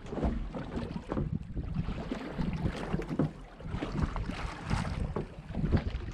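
Wind buffeting the microphone in uneven gusts, with choppy sea slapping against a small boat's hull.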